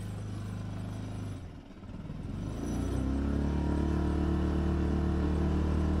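A small sailboat's motor running under way. The sound dips briefly about a second and a half in, then comes back louder and steady from about three seconds in as the throttle is opened to increase speed.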